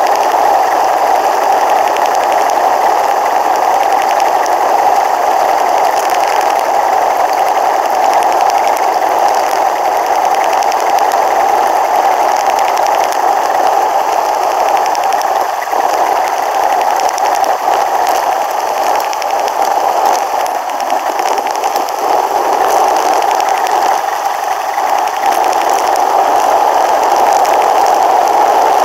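Bicycle rolling along a paved road, heard through a bike-mounted GoPro camera: a steady rushing noise of tyres and wind that eases off a little in the middle.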